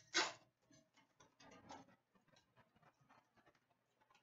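Trading cards being handled and flipped through by hand: a sharp snap just after the start, then a run of faint light clicks and rustles of card against card.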